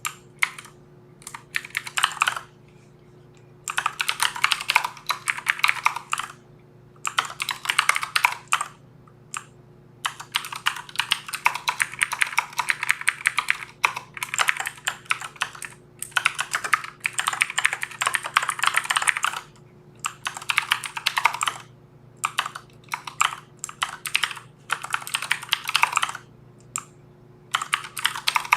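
Typing on a computer keyboard in quick runs of keystrokes with short pauses between them, over a faint steady low hum.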